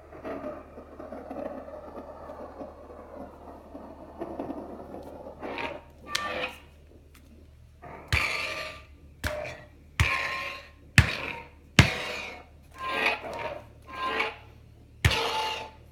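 Thor sound-font effects played by a Mjolnir prop hammer's Nano Biscotte v4 sound board: a steady noisy hum for the first few seconds, then about ten short noisy bursts, six of them opening with a sharp crack, coming thick and fast from about eight seconds in.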